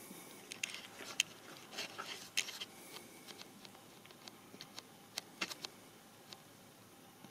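Faint clicks and light rustling from an iPad in a rugged case being handled and unlocked. They come thickest in the first three seconds, then thin out to a few scattered ticks.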